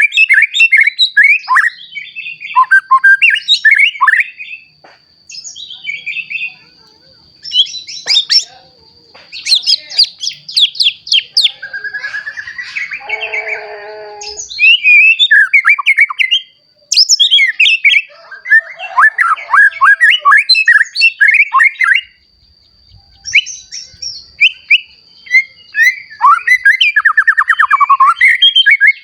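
A young white-rumped shama, freshly moulted into adult plumage, singing loudly: bursts of rapid, varied whistles, trills and harsh notes with short pauses between phrases. A thin, steady high tone runs behind much of the song.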